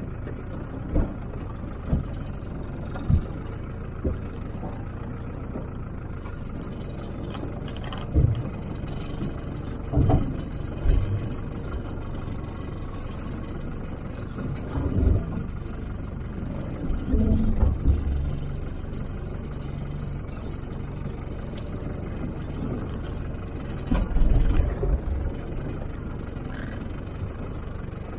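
Land Rover engine running at crawling pace over a rocky track, a steady low rumble. Irregular heavy thumps and knocks come through as the wheels and suspension go over rocks, bunched about ten seconds in, around the middle and near the end.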